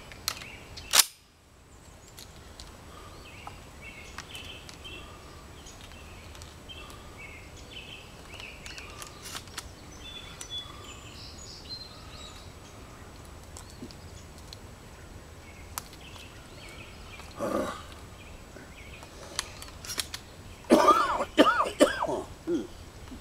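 A Weatherby SA-08 12-gauge semi-automatic shotgun is handled and loaded. There is one loud sharp clack about a second in, small clicks as shells go in, and a burst of louder metallic clatter near the end.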